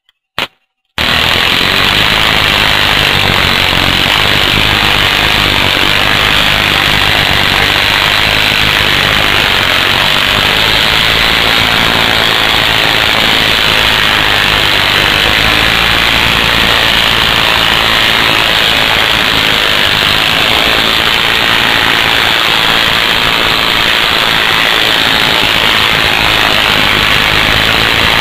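High-voltage sparks from a camera-flash-circuit stinger jumping a small air gap between a wire and a probe tip, in a rapid, loud, crackling stream. Two single snaps come first, and the steady crackle starts about a second in.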